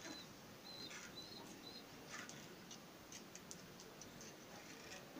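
Faint room tone with a few short, high bird chirps in the first second or so, then several light clicks of a knife tip against a plate as slits are cut into a piece of meat.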